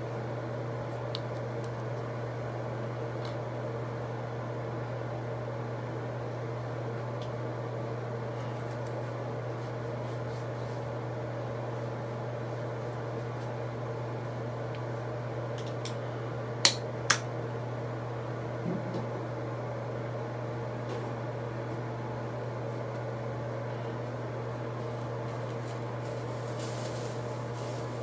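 Steady low machine hum, like a running fan, with two sharp clicks about half a second apart some 17 seconds in.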